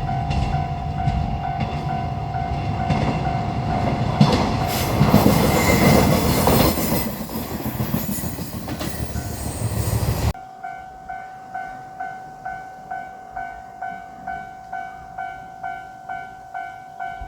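Japanese level-crossing alarm bell ringing in a steady clang while a JR Shikoku 1500-series diesel railcar passes, its engine running and its wheels clattering over rail joints. About ten seconds in, the train noise cuts off abruptly, leaving only the crossing bell ringing about twice a second.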